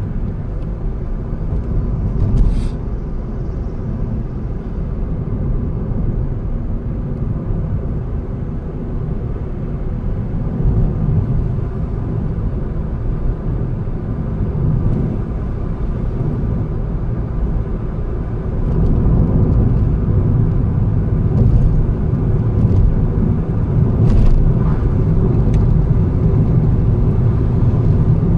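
A car driving on a road: a steady low rumble of engine and tyres that grows louder about two-thirds of the way through, with a couple of brief faint knocks.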